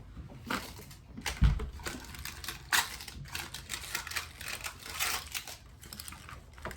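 Small plastic toy mixer being handled: irregular light clicks and plastic rattling and rustling, with a dull knock about a second and a half in.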